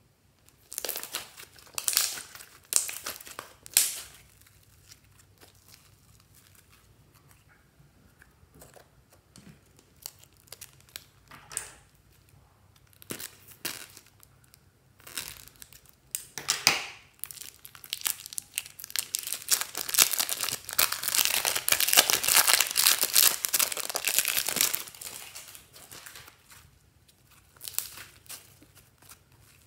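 Slime and its plastic piping bags being handled, stretched and cut by hand. Scattered short crackles and rustles, then about seven seconds of dense, continuous crackling some two-thirds of the way through.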